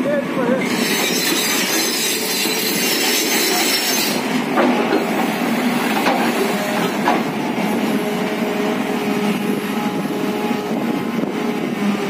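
JCB JS215 tracked excavator's diesel engine running steadily under load with its hydraulics working as the bucket digs in a trench, with a few sharp metal clanks around the middle.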